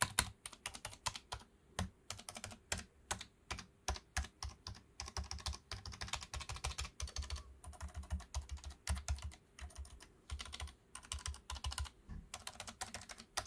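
Typing on a Gamakay LK67 mechanical keyboard fitted with Gamakay Phoenix linear switches: a steady run of sharp keystroke clacks, fastest in the middle, with a brief pause near the end.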